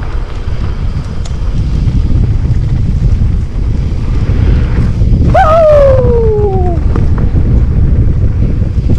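Wind buffeting the microphone over a steady low rumble of a mountain bike rolling down a trail. About five seconds in, a pitched sound slides down in pitch for about a second and a half.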